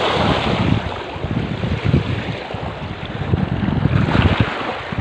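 Small waves washing and splashing against a rocky shoreline, with wind buffeting the microphone in irregular low rumbling gusts.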